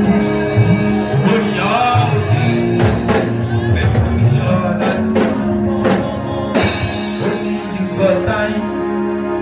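Church gospel music: a band playing with singing, a guitar among the instruments.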